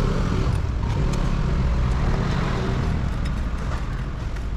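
Motor vehicle engine running steadily with a low rumble.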